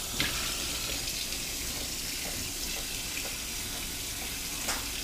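Kitchen tap running steadily into a sink, with a couple of faint knocks.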